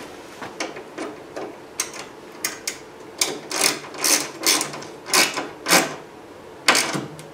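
Hand ratchet wrench clicking in about a dozen short, uneven strokes as a bolt is turned at a hatch strut's upper mount on a car's rear hatch.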